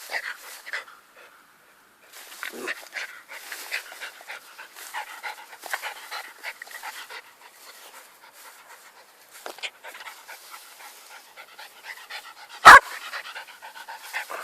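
Jack Russell terrier panting rapidly in quick irregular puffs. About two seconds before the end there is one sharp, loud knock.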